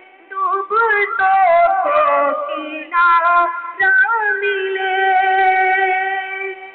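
A high voice singing an unaccompanied-sounding melody, with quick ornamented runs in the first half and a long held note that fades out near the end.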